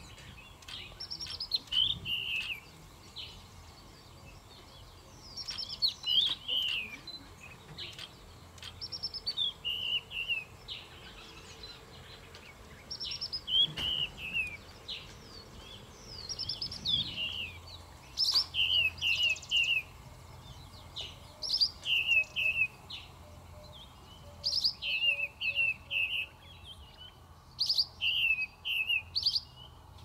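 A bird calling over and over: short, clear whistled notes that drop in pitch, given in quick runs of three or four every second or two.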